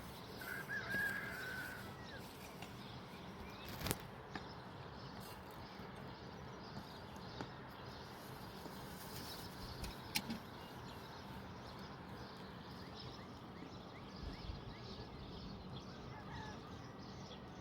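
Outdoor background with a short animal call about a second in and a couple of sharp knocks later on.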